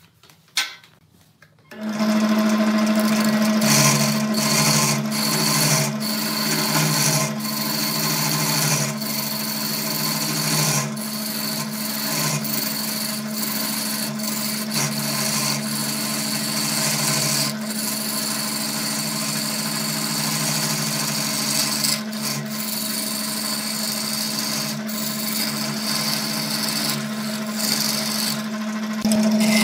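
Wood lathe running with a steady motor hum while a hand-held turning tool cuts into a spinning segmented wooden vessel, making a continuous rasping scrape as shavings come off. It starts about two seconds in.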